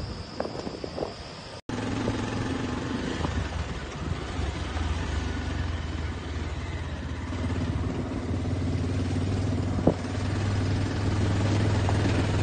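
Vehicle engine running steadily while on the move, a low hum heard onboard. The sound drops out briefly about a second and a half in, then the hum gets a little louder near the end.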